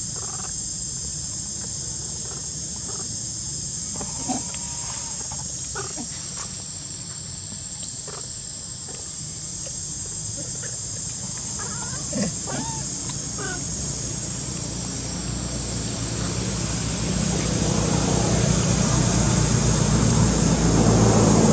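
Steady, high-pitched insect buzzing, with scattered short squeaks and chirps over it. A low rumble builds over the last few seconds.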